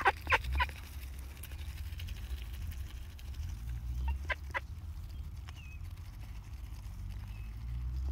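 Ducks pecking grain from a hand, their bills making a few sharp clicks near the start and two more about four seconds in, over a steady low rumble.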